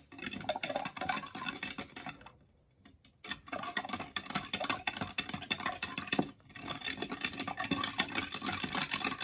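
White plastic spoon stirring drink mix into a tall glass of water, clicking and rattling rapidly against the glass. The stirring pauses for about a second around two seconds in and briefly again around six seconds in.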